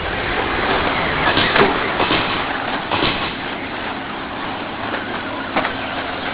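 Several electric RC short-course trucks racing on a dirt off-road track: a steady rush of motor and tyre noise that swells briefly several times as trucks pass.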